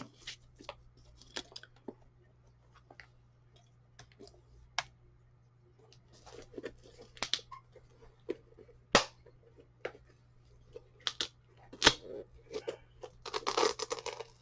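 Handling noises from a new roller skate and its packaging: scattered clicks, taps and knocks, with a burst of rustling near the end.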